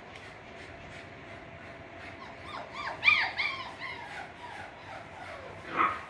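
Six-week-old Russell terrier puppies yipping and whimpering in play. A run of short, high yips starts about two seconds in and is loudest about a second later. One more falling yelp comes near the end.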